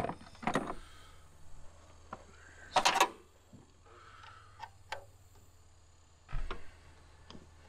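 Scattered metal clicks and clinks of an open-end wrench working a fuel-line fitting on a 7.3 IDI diesel engine, the loudest cluster about three seconds in, over a low steady hum.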